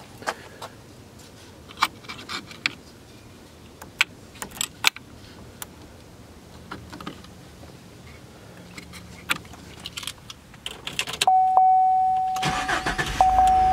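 Scattered light clicks and jangling keys, then the 2015 Chevy Silverado is powered up about eleven seconds in: a steady electronic tone comes on and the engine starts and runs.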